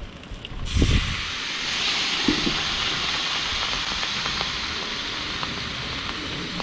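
A splash of water on a hot flat-top griddle bursts into a loud, steady steam hiss about a second in. The hiss goes on beside the frying eggs under a steel basting dome, which steams the tops of the eggs. A couple of dull knocks come early as the dome is set down.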